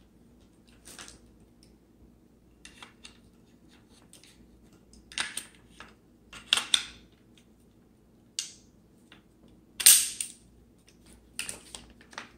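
Sharp metallic clicks and clacks of an AR-15 rifle being handled and reassembled as a new Strike Industries charging handle is fitted, with about five louder clacks spaced a second or two apart and smaller clicks between.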